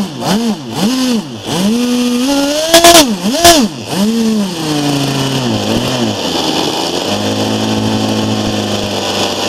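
Webra 61 model glow engine with a tuned pipe, driving a RamTec ducted fan, being blipped on the throttle: its pitch rises and falls quickly several times over, loudest at the two highest revs about three seconds in. About seven seconds in it settles back to a steady idle.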